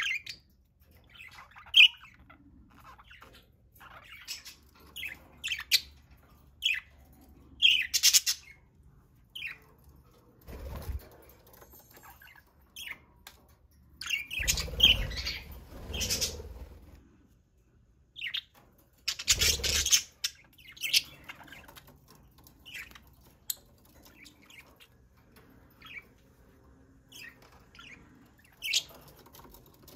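Pet budgerigars chirping in short, scattered high calls. Three longer, louder noisy bursts come about a third of the way in, around the middle, and about two-thirds in.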